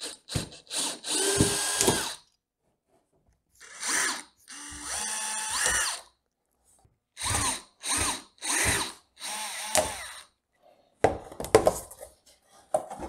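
Power drill running in a series of short bursts, some up to about a second long, as it backs out the large-headed upholstery screws holding a strip of wooden layout fascia. A few sharp knocks and clatter follow near the end.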